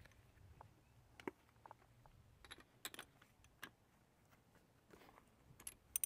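Faint, scattered metallic clicks and clinks of hand tools as spark plugs are being worked out of an outboard's cylinder head.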